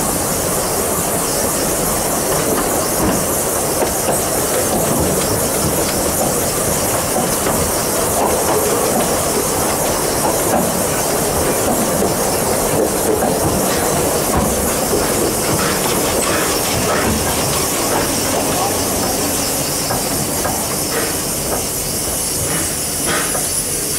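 Narrow-gauge steam train heard on board while running: a steady rumble of wheels on the track with clicks over the rail joints, and a constant hiss from the steam locomotive.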